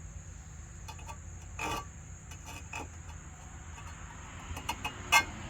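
A hand file on the teeth of a brush-cutter saw blade: a few scattered short scrapes and clicks, one longer stroke about two seconds in and a cluster of sharper clicks near the end. A steady high insect buzz sits underneath.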